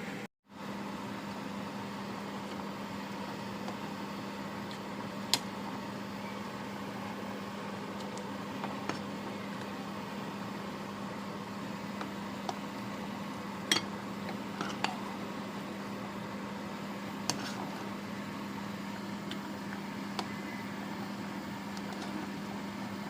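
A steady mechanical hum with a low, even tone, like a running fan or motor, with a few sharp light clicks scattered through it.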